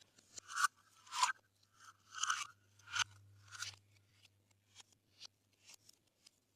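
Glossy slime being squeezed and folded by hand, giving about five soft wet pops in the first four seconds and then a few faint ticks.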